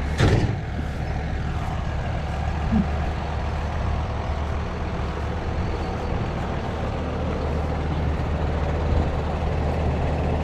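Tractor diesel engine running steadily at a constant pace, with a brief knock near the start.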